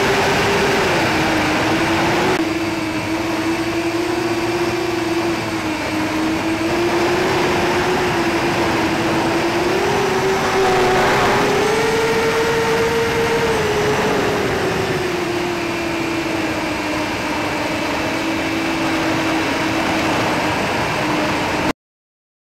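Hubsan H501SS quadcopter's brushless motors and propellers running in flight on a 3S 11.1 V battery, heard on board as a steady whine whose pitch wanders with throttle. The pitch rises for a few seconds about halfway through and eases off again. The sound cuts off suddenly near the end.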